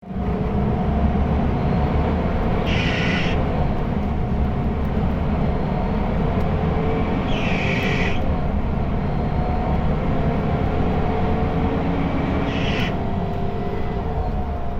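Rear-mounted diesel engine of a Mercedes-Benz OC500LE bus running under way, heard from the back seat: a heavy, steady rumble with a few tones that slowly drift up and down as the ZF automatic gearbox drives. Three short hisses cut in, about every five seconds.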